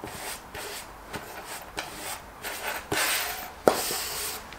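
Cotton fabric pieces and a zipper rustling and sliding as they are handled and smoothed on a wooden table, with a few soft knocks on the tabletop, the sharpest about three and a half seconds in.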